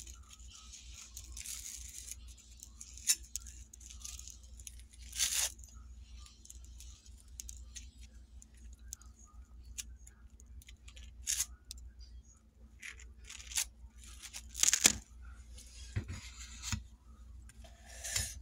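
A table knife scraping across dry toast as peanut butter is spread on it, with dips into a jar: a run of short, irregular rasping scrapes, a few of them louder. A faint steady hum runs underneath.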